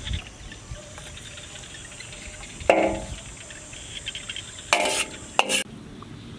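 Metal ladle clanking and scraping against a metal cooking pot: one sharp ringing clank about two and a half seconds in, then a longer scrape and a short clank near five seconds.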